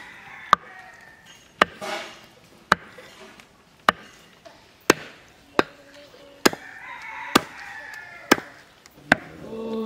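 A heavy cleaver chopping raw mutton on a wooden log chopping block: about ten sharp chops, roughly one a second.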